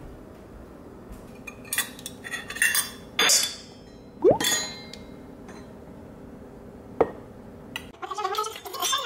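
Metal measuring spoons clinking and knocking against a stainless steel mixing bowl in a quick run of strikes, then one louder strike about four seconds in that leaves the bowl ringing briefly, and a single click later.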